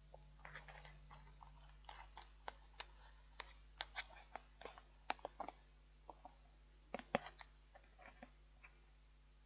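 Utensil scraping and tapping against a microwave meal pot and plate as noodles are tipped out onto the plate: a faint, irregular string of short clicks and scrapes.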